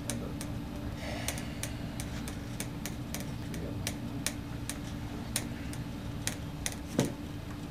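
Computer keyboard keys and mouse buttons clicking, sparse and irregular, over a steady low hum. A louder dull knock comes about seven seconds in.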